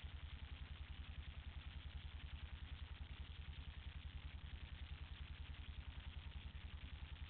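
ATV engine idling steadily, an even, rapid low throb.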